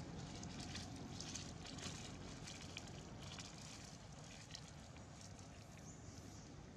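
Dry fallen leaves crackling and rustling underfoot, an irregular scatter of light crackles over a low steady rumble.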